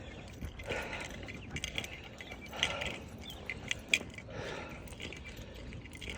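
A person's heavy, labored breathing while climbing steps: a long breath about every two seconds. Scattered light clicks and jingles sound between the breaths.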